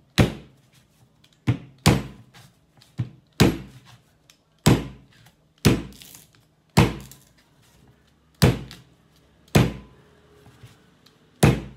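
A large kitchen knife chopping through the stem ends of fresh corn ears onto a wooden cutting board: about nine hard, sharp chops, roughly one a second.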